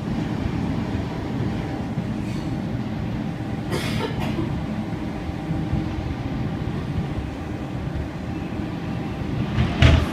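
A Sydney Trains C-set double-deck electric train running along the track, heard from inside the carriage: a steady rumble of wheels on rail. A brief rushing noise comes about four seconds in, and a short louder burst with a thump comes near the end.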